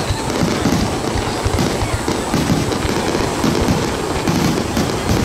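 Fireworks display bursting overhead: an irregular, rapid run of booms over a steady rumbling haze.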